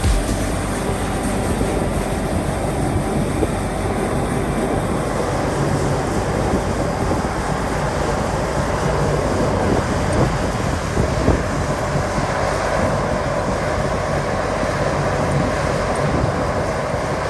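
Self-propelled pea harvester (viner) running steadily, its engine and machinery making a continuous dense noise.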